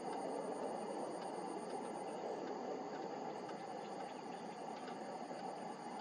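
Insect trilling in a rapid, high-pitched pulsed trill that breaks off briefly about two seconds in and starts again a second later, over a steady low hiss.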